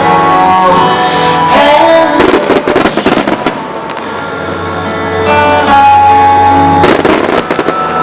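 Music playing over a starmine fireworks display, with a rapid cluster of firework bangs and crackles from about two to three and a half seconds in, and another burst a little before the end.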